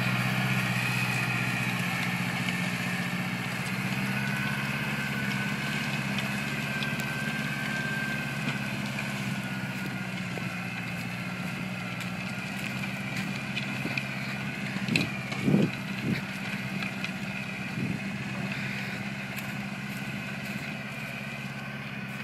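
Massey Ferguson tractor's diesel engine running steadily while ploughing a wet field, with a few short knocks about two-thirds of the way through.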